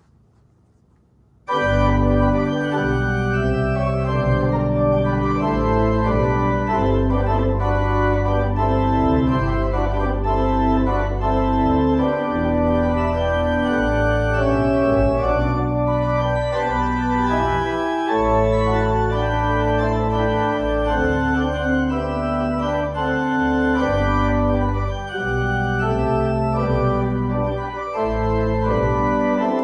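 Organ music that starts abruptly about a second and a half in, sustained chords over a steady bass, played as the postlude after the dismissal.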